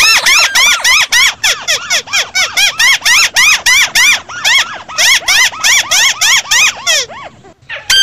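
Crake (tikusan) calling, a lure recording: a fast series of loud, arched chirps, about five a second, with a short break past the middle, breaking off about seven seconds in.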